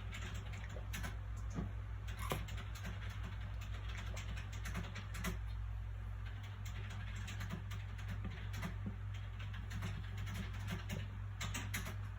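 Soft paper sounds from handling a book: small scattered taps, ticks and light rustles of the pages, over a steady low background hum.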